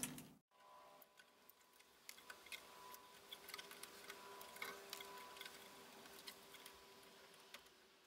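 Near silence with faint, scattered small clicks and ticks: hands handling wires and small tools inside an amplifier chassis, the clicks coming from about two seconds in.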